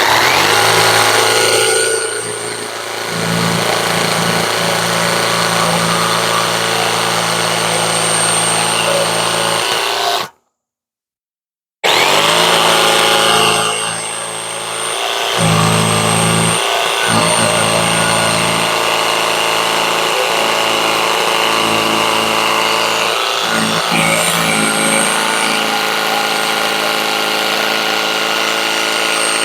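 Jigsaw cutting through a maple board, its motor running steadily. It stops dead about ten seconds in and starts again a second and a half later.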